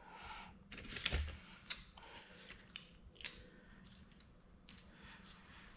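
Light, scattered metallic clicks and clinks of small bolt hardware: a spacer, stud and screw being handled and fitted onto a 13mm socket. The sharpest click comes about a second in.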